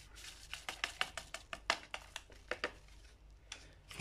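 Paper sachet of baking powder crinkling and being tapped as it is emptied into the mixing bowl: a quick, irregular run of crisp ticks that dies away about three seconds in.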